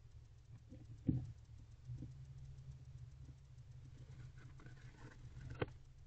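A barn owl shifting and turning on the floor of a wooden nest box: soft scuffs and rustles of feet and feathers, with two sharper knocks, about a second in and near the end. A steady low hum runs underneath.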